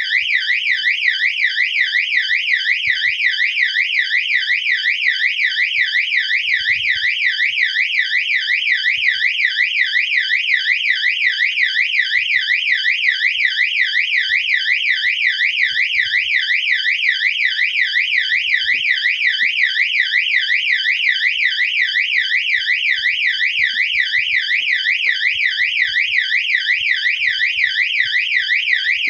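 Qwork electronic fire alarm siren-strobe sounding continuously: a loud, shrill electronic tone warbling rapidly up and down, several sweeps a second, without a break.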